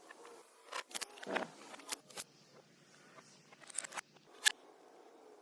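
Scattered short clicks and brief scrapes of hand work with tools and wood, with a sharp click about four and a half seconds in.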